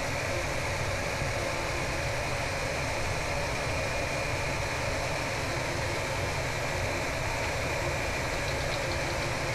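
Diode laser engraver running an engraving job: a steady mechanical hum and fan-like whir with no breaks.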